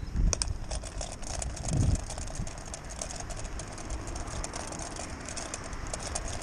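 Distant watercraft engine droning steadily, under wind buffeting the microphone, with many faint rapid clicks.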